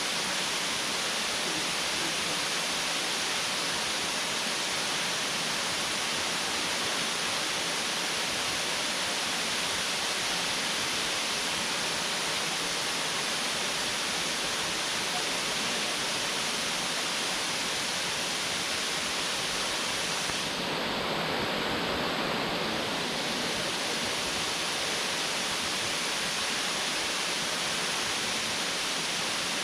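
Waterfall: a steady rush of falling water that briefly sounds duller for a couple of seconds about two-thirds of the way through.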